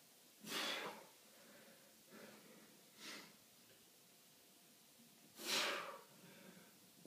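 A man breathing hard through push-ups, tired near the end of a hundred: three loud exhales about two and a half seconds apart, one with each push-up, with softer breaths between.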